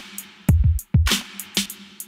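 Intro music with a steady drum beat: a low kick drum about twice a second, with sharp snare and cymbal hits between.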